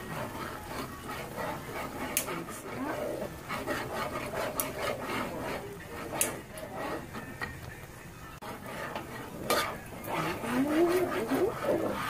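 Metal spoon stirring a pot of black beans in tomato-based cooking sauce, scraping through the thick beans with a few sharp clinks against the side of the pot.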